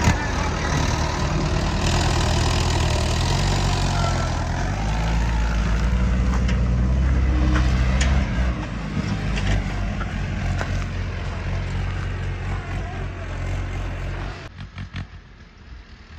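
Heavy diesel engine running steadily under load, louder for the first eight seconds and then easing off. It drops away sharply about fourteen seconds in.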